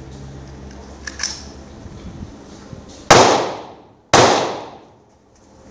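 Two loud carbine shots about a second apart, each a sharp crack followed by a long echo that dies away over nearly a second.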